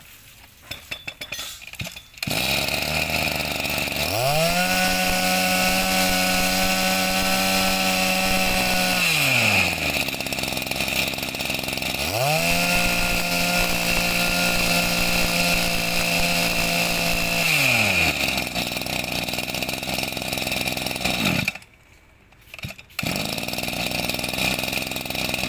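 Shindaiwa G23 23cc two-stroke brush-cutter engine starting up and running, revved up twice to high speed and held for about five seconds each time before dropping back to idle. Near the end it cuts out for about a second, then runs again.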